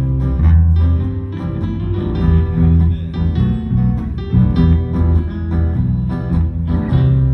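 Instrumental country-western music led by guitar: a strummed and plucked guitar break over a steady bass line.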